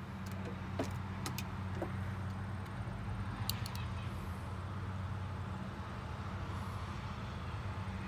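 Steady low hum of a distant engine running. A few faint clicks and taps come from a brass cartridge being handled at a reloading press and with metal digital calipers: a couple about a second in, more around three and a half seconds.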